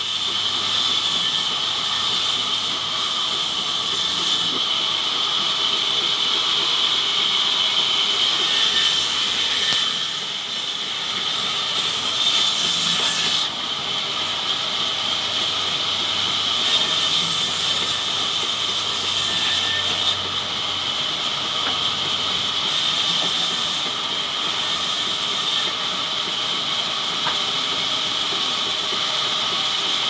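Large sawmill band saw running steadily, with a constant high hiss and whine as banyan wood slabs are fed through it. The brightest top of the hiss comes and goes every few seconds.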